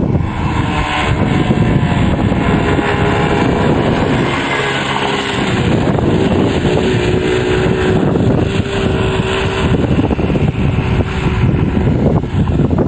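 Engine of a 90cc quad ATV running continuously, its pitch rising and falling with the throttle.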